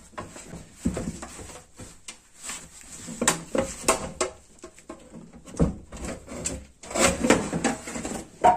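Dishwasher's concrete counterweight block being worked loose and pulled out of the base, scraping and knocking against the metal frame in a string of irregular knocks and scrapes, the loudest knock near the end.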